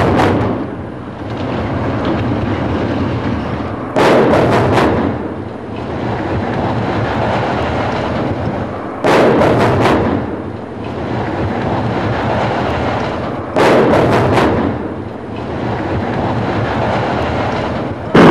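Explosive demolition charges in a high-rise tower block going off, each time as a quick string of three or four sharp cracks, then several seconds of rumbling. The blast sequence is heard four times, about every four and a half seconds, with a fourth string right at the end.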